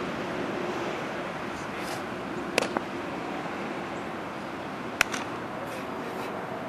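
Two sharp pops of a baseball smacking into a leather glove, about two and a half seconds apart, over a steady background hiss.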